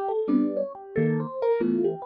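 Background keyboard music, electric-piano-like, playing chords and quick runs of notes.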